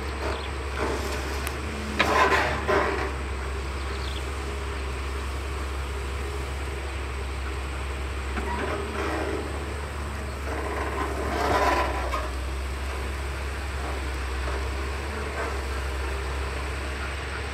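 Caterpillar 320CL long-reach excavator at work: its diesel engine runs with a steady low drone. Two louder, rougher surges come through, about two seconds in and again around eleven to twelve seconds in.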